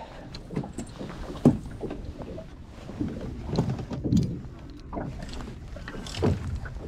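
Choppy water lapping and slapping against the hull of a drifting metal fishing boat, with irregular low thumps and knocks, the sharpest about one and a half seconds in.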